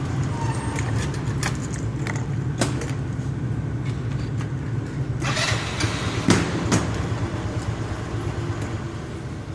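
SYM Z1 scooter's single-cylinder engine idling with a steady low drone and scattered clicks, plus a short rush of noise and two sharp knocks a little past halfway. The owner reports this warm idle as abnormal, sagging to about 1000 rpm with a strange engine noise.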